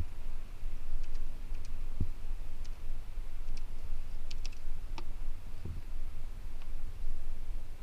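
Scattered light clicks of keys being pressed on an in-car computer keyboard, a dozen or so at uneven intervals, with a couple of soft thumps, over a steady low hum.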